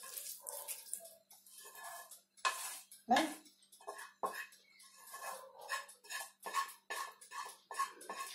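A spoon scraping and knocking against a metal pan as cooked meat filling is scooped out: a run of short clinks and scrapes, with two louder knocks about two and a half and three seconds in.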